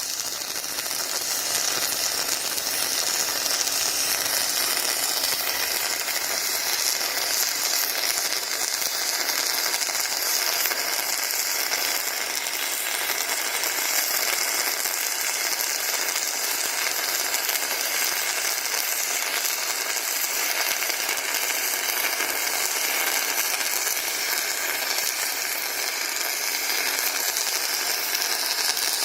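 Robotic MIG welding arc on aluminium, a steady crackling hiss that holds without a break.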